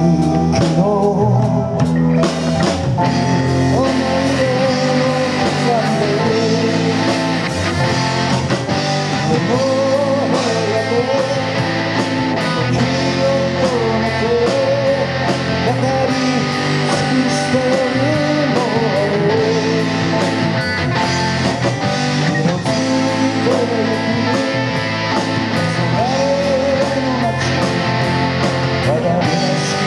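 A live rock band playing: a lead vocal over guitars and a steady drum-kit beat.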